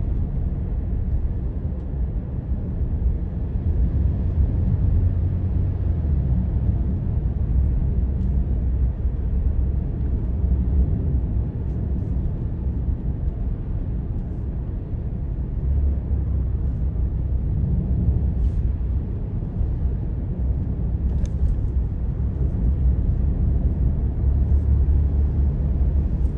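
Steady low rumble of a moving car heard from inside the cabin: road and engine noise, with the tyres running on wet pavement.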